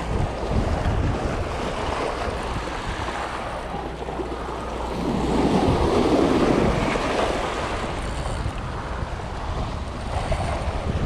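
Sea waves surging and breaking over shoreline rocks, with one louder surge about five to seven seconds in. Wind is buffeting the microphone throughout.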